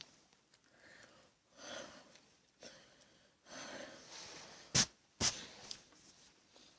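A boy breathing out hard through the mouth twice, a wheezy, breathy exhale, while eating a whole raw onion. Near the end there are two sharp, loud knocks close to the microphone, half a second apart.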